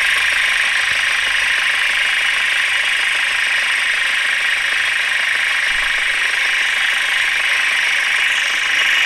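Car engine idling with its turbocharger's compressor inlet open (intake pipe removed), a steady hiss of air being drawn into the compressor. This is the idle stage of a check for oil leaking from the turbo's compressor side.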